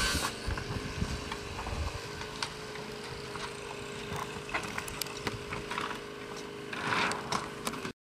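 Demolition work on a corrugated metal roof: scattered knocks and clanks of roofing being pried and handled, over a steady low hum, with a louder rattle about seven seconds in. The sound cuts off abruptly near the end.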